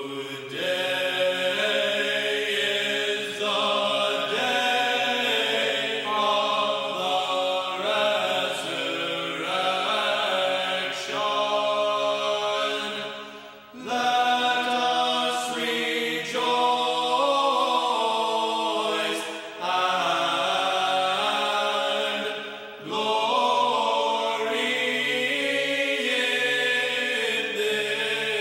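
Liturgical chant sung by several voices together, in long held phrases with brief breaks between them.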